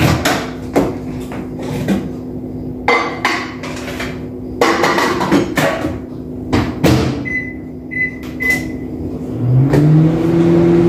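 Knocks and clatters as a plate is set into a microwave oven and its door is handled, then three short keypad beeps about seven seconds in. Near the end the microwave starts running, its hum rising in pitch and then holding steady.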